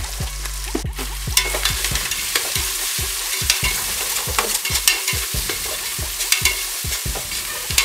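Onions, green chillies and spices frying and sizzling in oil in a stainless steel pot, while a metal slotted spatula stirs them, scraping against the pot a few times a second.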